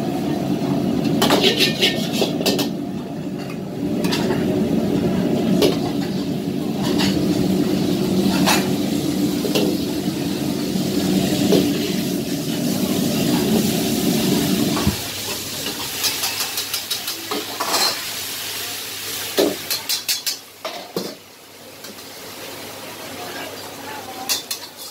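A metal ladle scrapes and clanks against a steel wok while stir-frying. Under it is the steady low roar of a gas wok burner, which cuts off suddenly about fifteen seconds in. After that only the ladle's clanks and scrapes remain.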